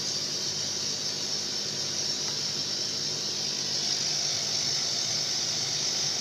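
A CO2 laser cutter's support equipment running: a steady hiss with a faint low hum underneath.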